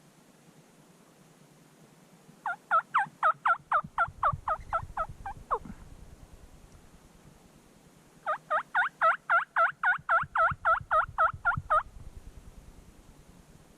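Turkey calling: two runs of quick, repeated notes, about four or five a second, each lasting around three seconds, with a pause of a few seconds between them.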